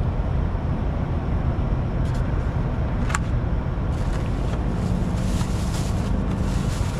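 Steady rumble of road traffic, with a brief click about three seconds in.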